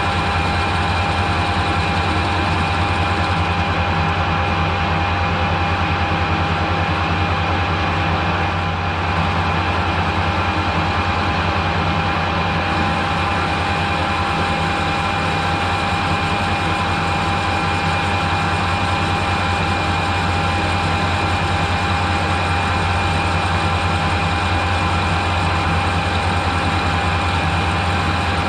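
Metal lathe running steadily, turning a 1-inch steel tube, with a constant hum and whine and no change in pitch.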